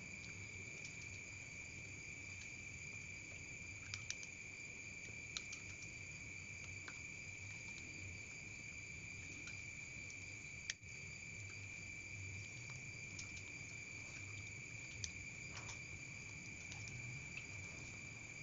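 Faint, steady high-pitched insect trill that runs on without a break. A few light clicks sound over it, chopsticks knocking on a steel bowl as sago paste is stirred.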